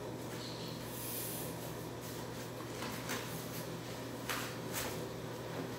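Rustling and a few brief scuffs of a fabric blood pressure cuff being wrapped and pressed around an upper arm, over a steady low hum.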